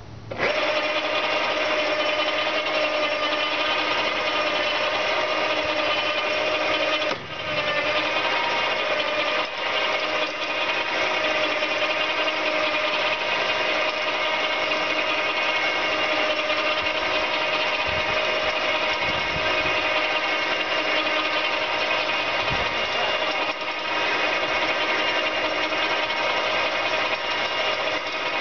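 Electric winch motor running under load with a steady high whine, hauling the boat on its cable; it starts abruptly and dips briefly about seven seconds in.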